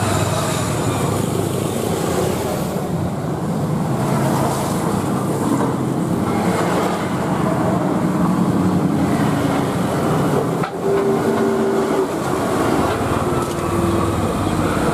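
Airbus A320-216's CFM56 jet engines running at taxi power: a steady rumbling roar with a faint hum in the second half.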